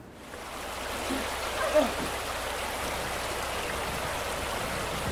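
Steady rush of heavy rain and water in a flooding house, with a brief louder sound just under two seconds in.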